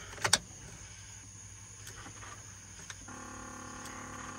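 Ignition key turned in a Chevrolet truck's steering column, with a couple of sharp clicks and no cranking after them: the engine will not turn over. About three seconds in, a steady pitched tone sounds for about two seconds.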